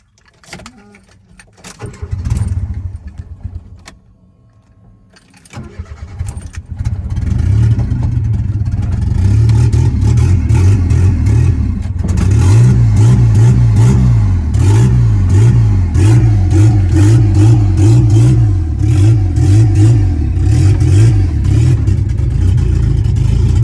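Turbocharged Chevrolet Corsa pickup engine being started. A first short burst about two seconds in dies away. The engine then catches about six seconds in and settles into a loud idle with a regular, uneven lope.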